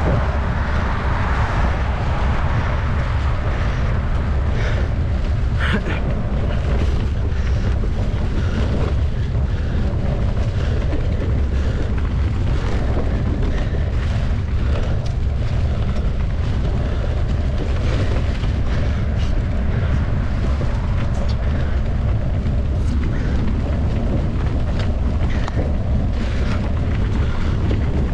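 Steady wind buffeting on the microphone of a camera carried on a mountain bike while riding, with scattered clicks and rattles from the bike running over the ground.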